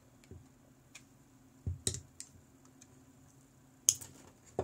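Scattered small metallic clicks and taps as the retaining C-clip is worked off the back of an EVVA GPI lock cylinder's core with pliers. The sharpest click comes near the end.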